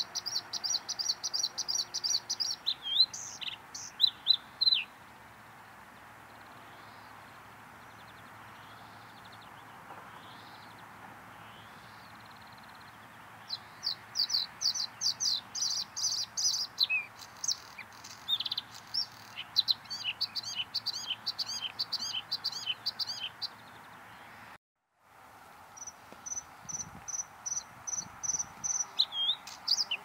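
Male bluethroat singing: bursts of fast, high repeated notes running into varied twittering phrases, with a pause of several seconds near the start.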